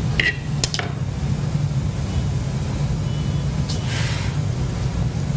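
A steady low background hum, with two brief faint clicks in the first second and a soft hiss about four seconds in.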